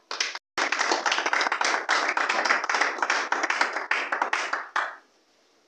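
Audience applauding: many people clapping together in a room. The clapping dies away about five seconds in.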